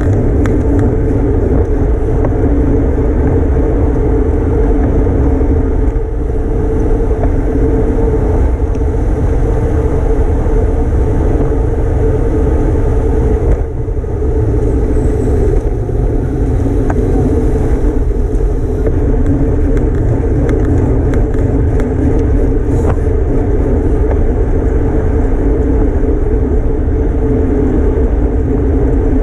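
Steady wind rushing over the microphone of a road bike ridden at race speed, with a rumble underneath and a brief dip about 14 seconds in.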